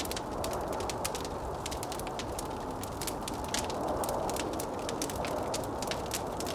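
Wood fire crackling with many small, sharp, irregular pops over a steady low rush of wind.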